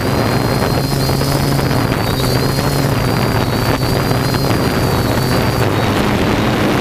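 Frontier Aerial Industries Galaxy 7000 quadcopter in flight, its electric motors and propellers giving a steady buzz with a thin, wavering high whine. Wind rumbles on the microphone underneath.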